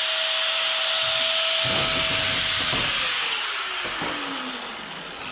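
Angle grinder with a cutoff wheel scoring thick steel plate: the motor holds a steady high whine under the cutting hiss. About three seconds in it is let off and spins down with a falling pitch.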